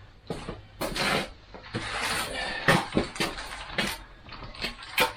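Chicken wire being pulled and fitted around a wooden pen frame: irregular rattling, scraping and knocking of wire against wood.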